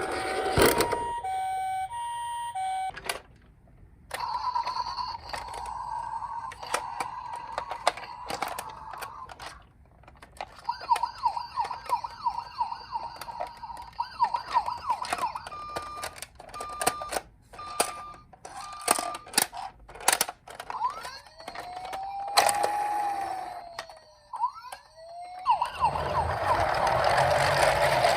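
Toy emergency vehicles' electronic sirens sounding in turn: a hi-lo two-tone, a steady tone, a run of short beeps, then a slow rising and falling wail. Sharp clicks and plastic rattling run through it, and a loud noisy clatter comes near the end.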